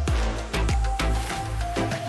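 Background music with a steady drum beat over deep bass and held synth notes.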